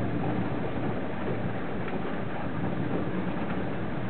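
Steady rush of a violent thunderstorm, wind and rain, with wind buffeting the microphone; no thunderclap.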